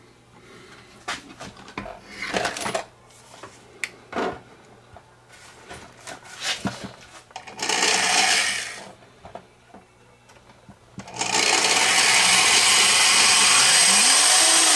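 Old AC-powered Craftsman reversible electric drill boring pilot holes into a sheet-metal light fixture box: a short run about eight seconds in, then a longer steady run of about four seconds near the end. Before that there are light clicks and handling knocks.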